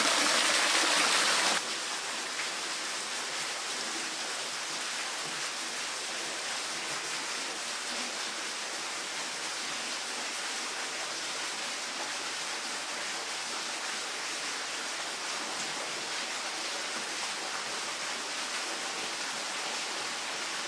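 Spring water flowing and splashing in a steady rush. It drops suddenly to a softer, steady flow about a second and a half in.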